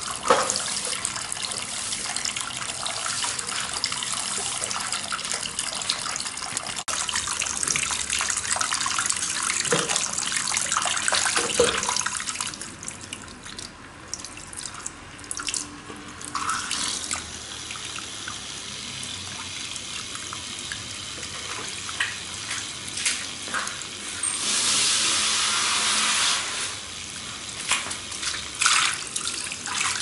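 Water splashing and trickling from the spouts of a small homemade cement fountain into its basin. It runs fuller for about the first twelve seconds, then softer and more uneven, with a louder stretch of splashing a little before the end.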